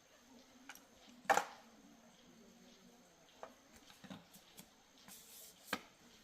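A few sharp clicks and knocks, such as tools or small parts being put down or handled, the loudest about a second in and another near the end, over a faint low hum.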